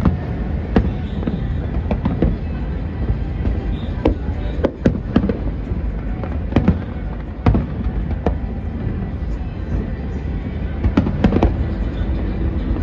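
Fireworks display heard from a distance: about a dozen sharp bangs at irregular intervals over a continuous low rumble of bursts.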